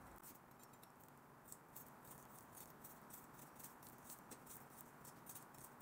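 Near silence with faint, irregular clicks: a long kitchen knife stabbing repeatedly into a raw leg of lamb on a wooden cutting board.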